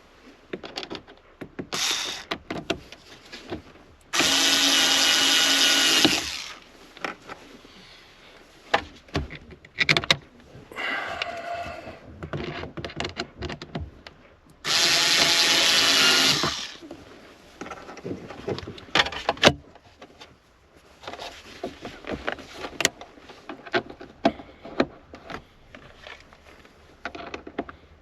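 A power drill/driver runs twice at steady speed, about two seconds each time, about four seconds in and again about fifteen seconds in. Between the runs come many short clicks and knocks of tools and parts being handled.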